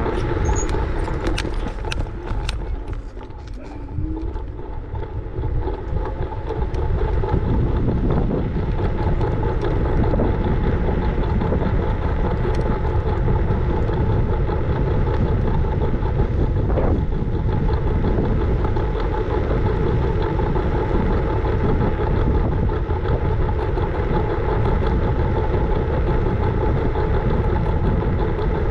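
Scooter ride over road: a steady rumble and rush of noise with a steady hum running through it. It is lower and uneven, with a few clicks, in the first few seconds, and settles into a steady level from about seven seconds in.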